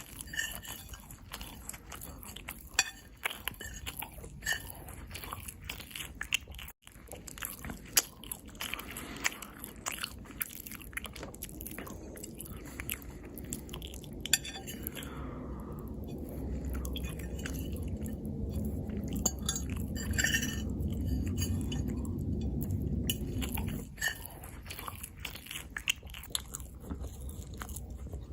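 Close-miked eating: biting and chewing with crunchy, clicky mouth sounds. A steady low rumble underlies the middle stretch and cuts off suddenly near the end.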